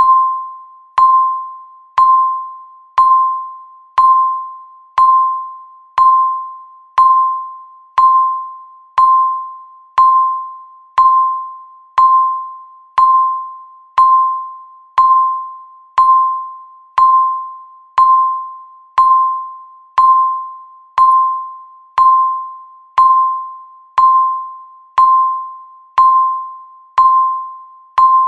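Countdown timer's electronic tick: a short, high, bell-like ping at one pitch, sounded once every second and fading quickly after each stroke.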